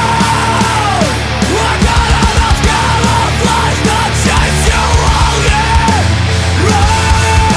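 Loud post-hardcore band music with heavy rock instrumentation and steady drum hits, and a high lead line that repeatedly bends down in pitch.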